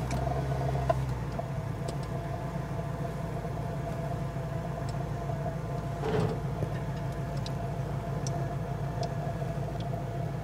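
Ford 7.5-litre (460) V8 of a 1977 Lincoln Continental idling steadily, running smoother now that its fuel problem is fixed, with a steady high whine over the engine note.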